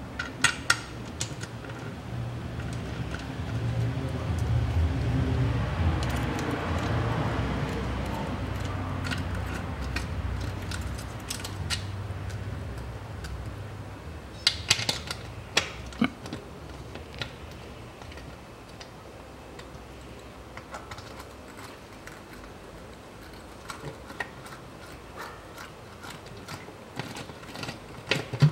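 Light metal clinks and ticks of pan bolts and a socket extension as a transmission oil pan is held in place and its bolts are threaded in by hand, with clusters of sharper clinks about half a second in and around fifteen seconds in. A low rumble swells and fades away over the first half.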